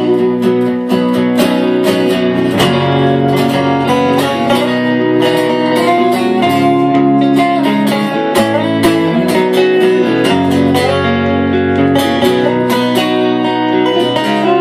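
Acoustic and electric guitars playing together live, strummed in a steady rhythm through an instrumental passage with no singing.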